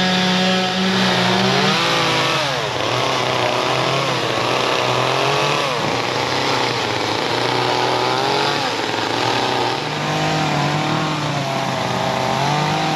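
Chainsaw revving up and down repeatedly, its pitch rising and falling every second or two, settling to a steadier run near the end.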